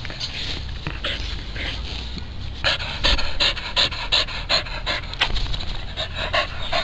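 Dog panting in quick breaths, about four a second, growing louder a little over two seconds in.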